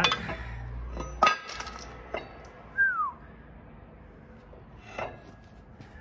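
Metal clanking and clinking from a disassembled circulating pump and hand tools handled on concrete. A sharp ringing clank comes about a second in, then lighter clicks, with a brief falling squeak about three seconds in.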